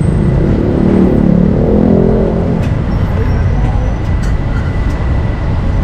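Busy street ambience: a steady low traffic rumble, with a louder hum swelling and fading in the first couple of seconds and a few light clicks later on.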